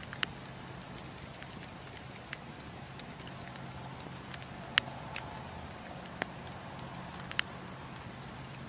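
Wood campfire crackling, with irregular sharp pops: the loudest come about a quarter second in, near the middle, and a little past seven seconds. They sit over a steady low hum.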